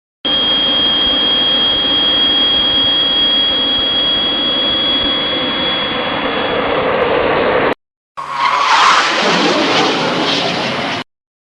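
Two aircraft sound-effect clips in a row. First a jet engine runs steadily with a high, even whine for about seven and a half seconds and cuts off. After a brief gap a second, louder aircraft sound with a falling pitch plays for about three seconds and stops abruptly.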